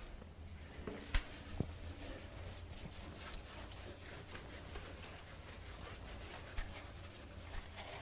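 Faint scrubbing of shower floor tiles with a scouring pad, with a few sharp knocks, over a low steady hum.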